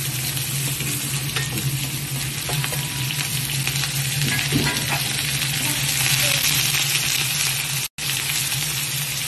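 Sliced onions sizzling in hot oil in a kazan while being stirred with a slotted spoon, with faint scrapes of the spoon against the pot over a steady low hum. The sound drops out for an instant near the end.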